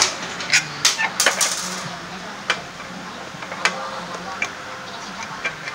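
Sharp metal clinks and knocks from handling a scooter exhaust pipe and hand tools. There is a quick cluster in the first second and a half, then single clicks about once a second.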